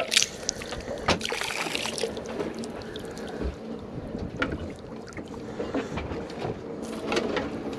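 Small boat on choppy water: water slapping the hull and wind, with scattered clicks and knocks as an aluminium-framed landing net is handled, and a low knock about three and a half seconds in.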